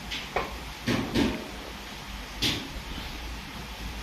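A few light, separate knocks and clicks of small wooden alphabet puzzle letters being picked up and set down.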